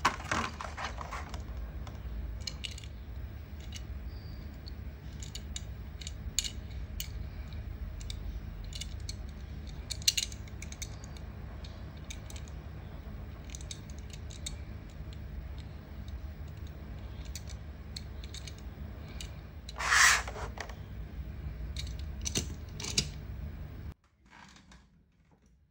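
Hands handling a small diecast toy car and its cardboard packaging: scattered light clicks and taps with paper rustling, a louder rustle about 20 seconds in, over a steady low hum. The sound cuts off sharply near the end.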